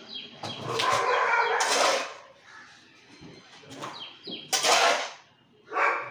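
Garden soil mix being dug from a heap with a hand tool and tipped into a plastic drum: a rushing, scraping pour lasting over a second early on, then two shorter sharp scrapes and pours near the end.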